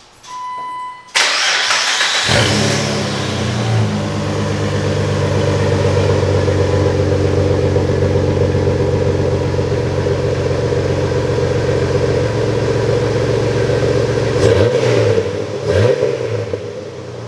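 Jeep Wrangler LJ's 4.0-litre straight-six, breathing through a Banks exhaust system, starting: it catches about a second in with a loud flare, then settles into a steady idle. Near the end the throttle is blipped twice.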